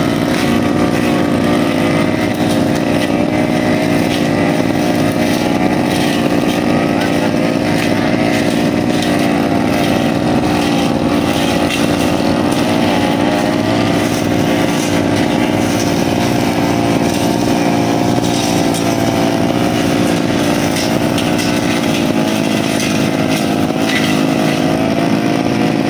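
Brushcutter engine running steadily at high revs, its pitch wavering slightly as it works, used to sweep dry leaves off a road.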